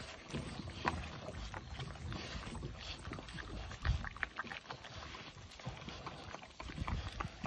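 Puppies eating raw meat: wet chewing and smacking, with scattered clicks and knocks over a low rumble.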